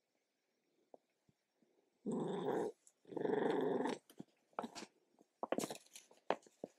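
A black house cat right up against the microphone: two loud breathy bursts about two and three seconds in, then a run of short clicks and taps as it nuzzles the camera.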